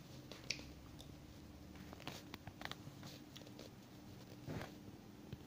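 Faint, sparse clicks and soft scraping of a small metal spoon scooping avocado flesh from its skin, over a faint steady hum.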